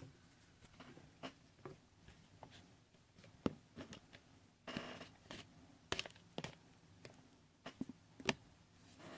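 Quiet handling noises: scattered sharp clicks and knocks, with a brief rustle about five seconds in.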